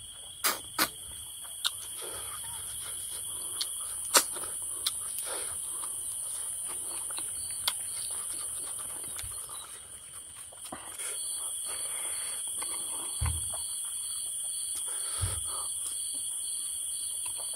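Insects chirring steadily as two unbroken high tones. About eleven seconds in, a second insect joins with a pulsing call. A few short sharp clicks and smacks of eating stand out over it.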